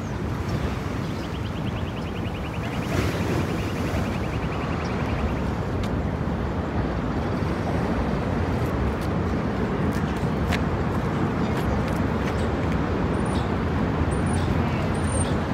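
Steady outdoor city street ambience: traffic noise with a low, even rumble. A rapid ticking runs for a few seconds near the start, and a few short high chirps come near the end.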